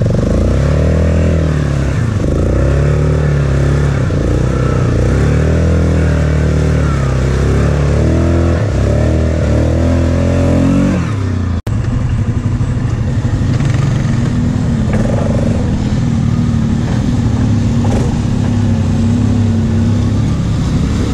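ATV engine revving up and down as the quad is ridden over rough ground, its pitch rising and falling again and again. About halfway through it cuts off abruptly, and a steadier engine sound at a more even pitch follows.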